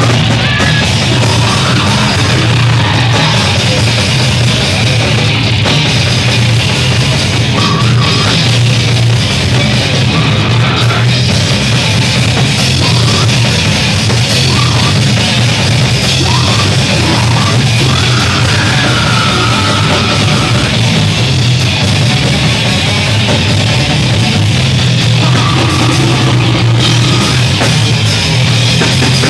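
Heavy metal band playing live: drum kit and amplified instruments together in a loud, dense wall of sound without a break.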